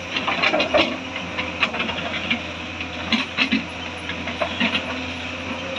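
Hyundai crawler excavator's diesel engine running steadily while its bucket digs into a bank of earth and rock, with bursts of clattering and knocking as the bucket scrapes through. The clatters come in clusters about half a second in, around a second and a half, around three seconds and again near four and a half.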